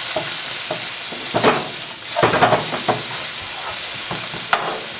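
Chicken strips and scrambled egg sizzling in hot oil in a wok while being stir-fried. A wooden spatula scrapes across the pan a few times.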